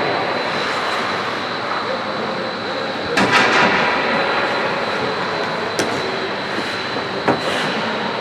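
Ice hockey game on the rink: a steady rush of noise with a faint high whine through it, a loud knock about three seconds in, and two sharp clicks near the end.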